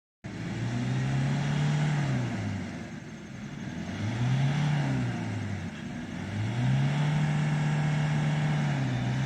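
A vehicle engine revving in surges. Its pitch climbs and holds, drops back about two and a half seconds in, rises and falls again around four to five seconds, then climbs and holds high near the end.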